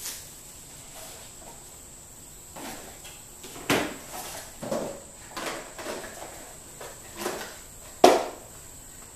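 Packaging and small items being handled on a table during an unboxing: rustling and light clatter, with two sharper knocks of objects set down, about four seconds in and again near the end.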